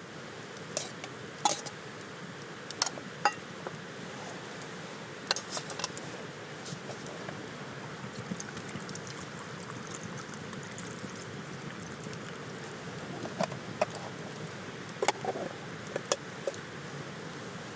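Wood campfire crackling: a steady low hiss with irregular sharp pops and snaps, a few in quick clusters.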